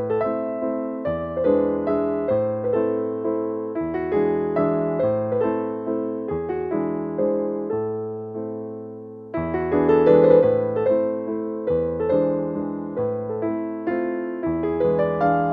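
Background music: a gentle piano piece of struck chords and melody notes that ring and fade one after another. It thins out briefly about nine seconds in, then a new phrase starts.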